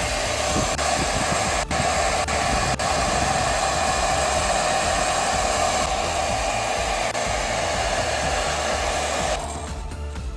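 Small electric motor running steadily with a loud, even rushing hiss, cutting off suddenly near the end.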